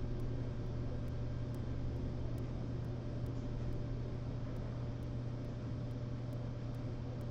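A steady low hum over a faint, even hiss, with no distinct events.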